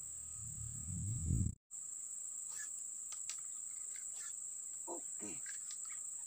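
Electronic intro music that cuts off abruptly about a second and a half in. It gives way to a steady high insect drone, crickets or cicadas, with a few faint falling calls about five seconds in.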